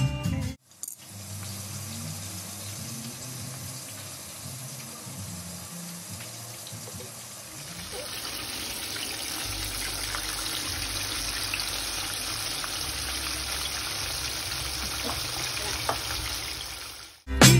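Water running from a tap, a steady rush that grows louder about eight seconds in.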